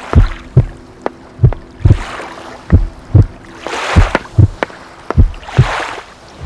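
Steady low thumps, a little more than two a second and alternating strong and weak like a heartbeat, with three swelling whooshes of noise over them.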